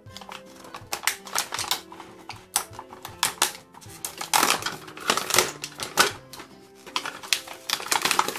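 Stiff clear plastic blister packaging crackling and clicking in irregular bursts as small plastic toy pieces are pushed and pulled out of it. Background music plays underneath.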